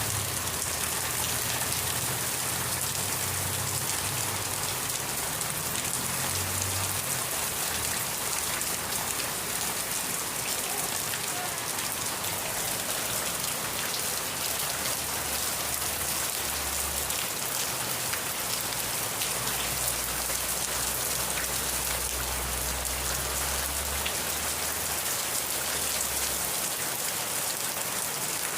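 Steady rain falling, a dense even hiss of countless drops with no break or change in strength.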